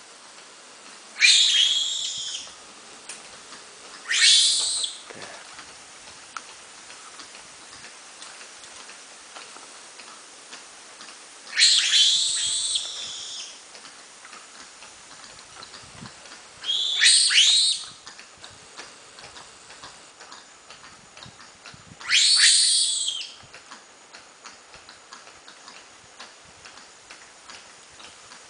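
Lemur calls: five loud, shrill cries of about a second each, some with a downward sweep, spaced several seconds apart.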